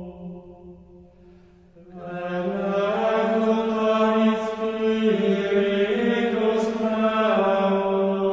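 Background music of slow, chant-like held tones over a steady low drone. It sinks almost away just after the start and swells back about two seconds in.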